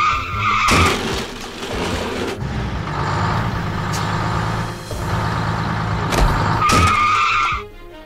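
A tractor engine runs steadily, dubbed over the toy tractor. A short horn sounds at the start and again about seven seconds in.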